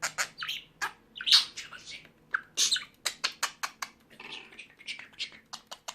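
Pet bird chattering: a rapid run of short chirps, squawks and clicks.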